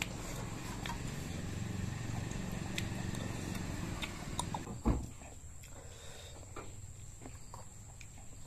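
Mouth-close chewing of raw beef, wet and clicky, with one sharp knock just before the middle. After the knock it turns quieter, with only faint soft clicks.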